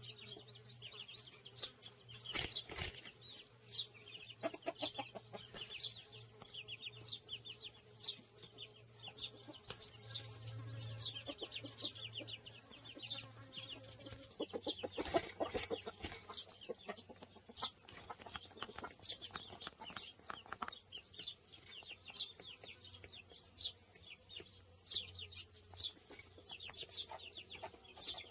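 Eurasian tree sparrow caught in a wire-mesh trap, chirping over and over in short high notes, with bursts of wings beating against the mesh about two seconds in and again around fifteen seconds in.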